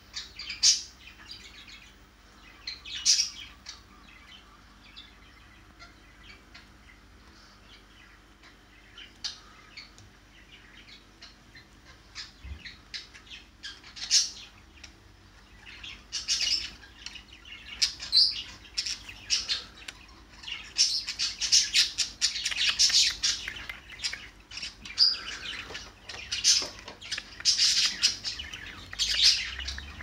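Budgies chirping and chattering in their cage: a few scattered single chirps at first, then busy, near-continuous high chatter from about halfway through.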